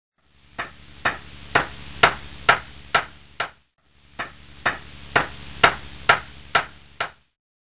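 Sharp clicks at an even pace of about two a second over a low hiss and hum, in two runs of about three seconds with a short break between them.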